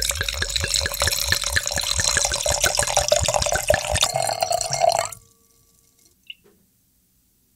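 Red wine glugging as it is poured from a bottle into a large wine glass, in rapid, even pulses that stop abruptly about five seconds in.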